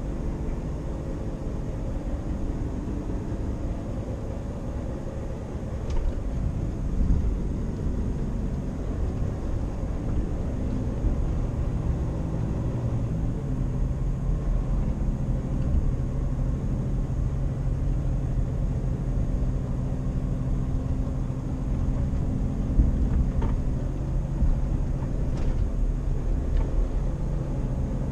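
Lorry's diesel engine running steadily, heard from inside the cab while driving; the engine note shifts about a dozen seconds in.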